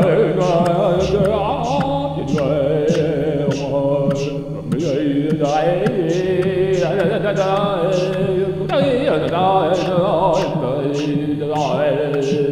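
Music with a steady low drone under a wavering, sung melody, and a light, regular ticking beat.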